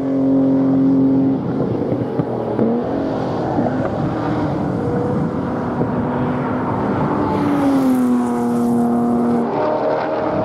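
Touring race car engines running hard at speed around the circuit. The engine note holds steady and falls in pitch twice, at the very start and again about eight seconds in, and a car passes close near the end.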